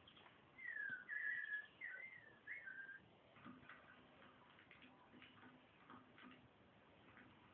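Television sound playing faintly in the room: a few short whistled tones, one sliding down and others short and level, in the first three seconds, then faint ticks and clicks.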